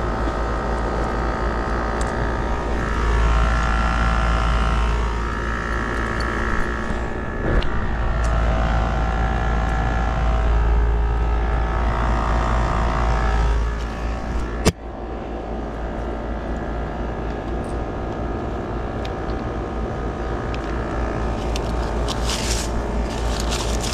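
Central air conditioner condenser running steadily, compressor and fan motor humming, after a failed dual run capacitor was replaced with a new 40/5 microfarad one. A single sharp click about fifteen seconds in, and some handling noise near the end.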